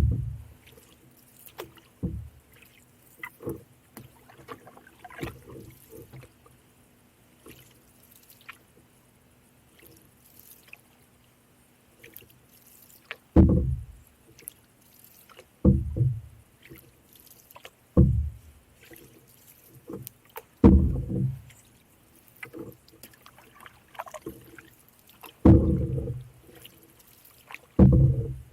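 Canoe paddling: after a quieter stretch of small clicks and drips, a low stroke sound comes about every two to three seconds through the second half.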